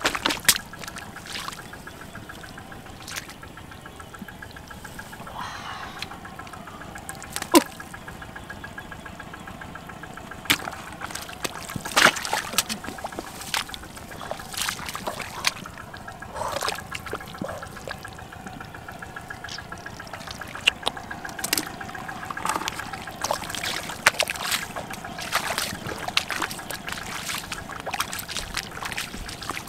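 Wet mud squelching and shallow muddy water splashing and trickling as a person wades through a flooded paddy and digs in the mud by hand, with frequent sharp splats.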